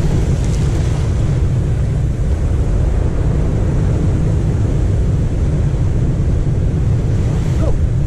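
Ocean surf breaking and washing against a volcanic rock shore, with heavy wind buffeting the microphone as a steady low rumble. The hiss of breaking surf swells near the start and again near the end.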